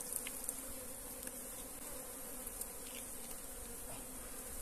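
Honeybees buzzing in a steady hum around an opened log hive whose comb is being cut out for honey, the colony stirred up by the harvest.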